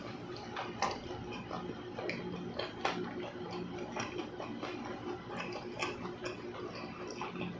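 Close-miked chewing of buckwheat crepe (memiljeonbyeong): irregular wet clicks and smacks, roughly one or two a second, over a low steady hum.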